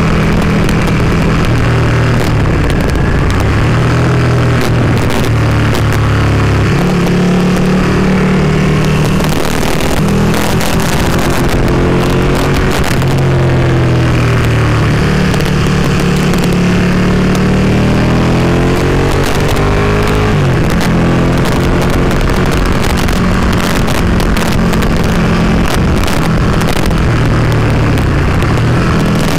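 Ducati Panigale 959's V-twin engine pulling uphill, its pitch holding, stepping and gliding up and down with the throttle and gear changes, under a steady rush of wind buffeting the camera.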